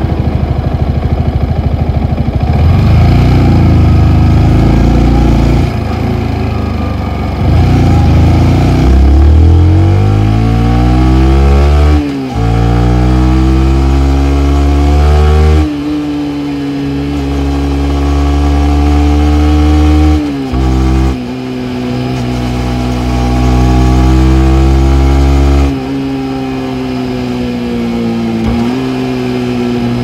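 Yamaha MT-15's single-cylinder engine through its stock exhaust, accelerating through the gears. The pitch climbs repeatedly, with a brief drop at three upshifts, and holds steadier near the end.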